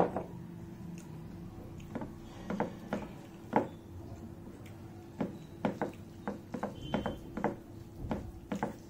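Eating by hand: fingers mixing rice and curry on a plate, giving a string of irregular small clicks, taps and squelches.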